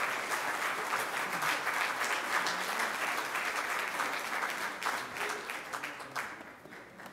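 Congregation applauding, a dense patter of many hands clapping that thins out and dies away near the end.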